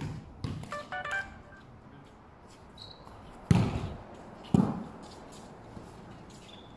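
A ball being kicked and bouncing on a concrete court in a foot game over a net: a light knock early on, then two loud, sharp thuds about a second apart, near the middle.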